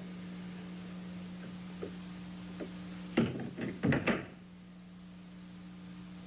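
A door being shut: a quick cluster of knocks and thuds about three seconds in, the first the loudest, over a steady low hum.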